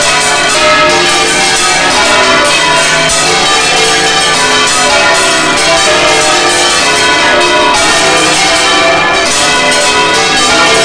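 Several large bronze church bells being swung full circle by hand (Spanish volteo), ringing loudly and without a break in a dense, overlapping clangour, heard from inside the belfry.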